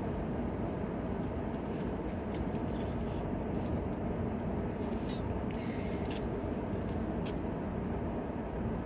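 Steady low outdoor rumble, like wind or distant rushing water, with a few faint scrapes or clicks now and then.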